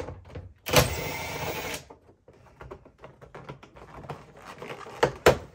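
A cordless driver with a 7 mm socket runs for about a second, backing a screw out of the truck's door-handle trim. It is followed by light clicks and rattles of the plastic door trim being worked loose by hand, with two sharp clicks near the end.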